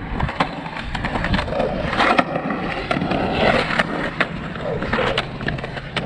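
Skateboard wheels rolling and grinding across a concrete bowl, with repeated sharp clacks of the boards hitting the concrete.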